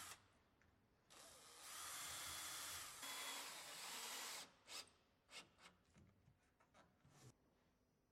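Small power drill running steadily for about three seconds with a faint high whine, boring fixing holes for the striking plate. This is followed by a scattering of light clicks and taps.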